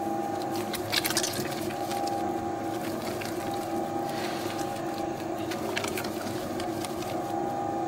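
Professional dough mixer running steadily, its motor humming at an even pitch as it kneads a soft, high-hydration pizza dough. A few light clicks about a second in and again near six seconds.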